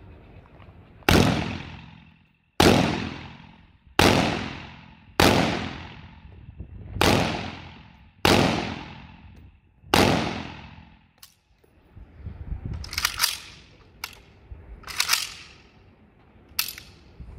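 Seven single shots from a Saiga .223, a Kalashnikov-pattern semi-automatic rifle, fired about one and a half seconds apart, each with a long echo fading off the range walls. After the last shot come a few sharp metallic clicks and clatter as the rifle is handled.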